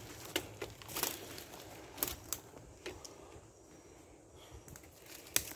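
Footsteps crunching through leaf litter and undergrowth on a jungle slope: irregular soft crunches and rustles, with a sharper click near the end.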